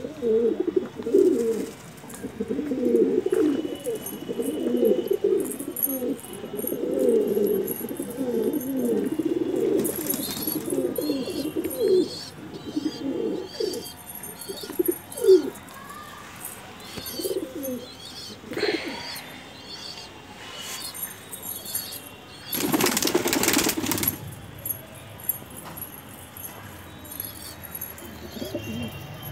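A flock of desi high-flying pigeons cooing, many overlapping at first and fewer, scattered coos from about halfway. About three-quarters of the way through comes a loud flutter of wings lasting a second or so.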